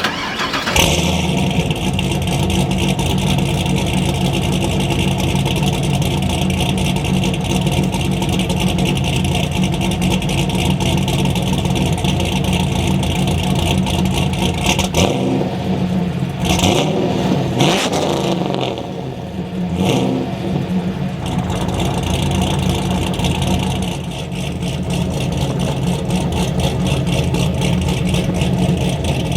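Car engine running through a custom 3.5-inch 304 stainless exhaust with a Hawks/SLP-style muffler and dual 3-inch tips exiting on the left, a steady deep exhaust note. About halfway through the revs rise and fall a few times before settling back to a steady run.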